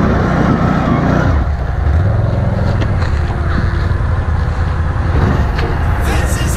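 Can-Am Renegade ATV's V-twin engine running hard under load as it climbs a steep slope, the engine note rising and falling with the throttle. A few sharp crackles come near the end.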